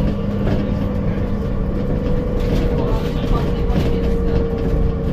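Alexander Dennis Enviro400MMC double-decker bus heard from on board: a steady engine drone with a held, mid-pitched whine over it that sinks slightly in pitch, and a lower hum beneath. This is the weird idling sound the bus is known for.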